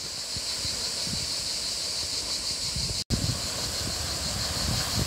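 Steady high-pitched chorus of cicadas over a low rumble of wind on the microphone, with a brief dropout about three seconds in, after which sea surf washing on rocks joins the wind.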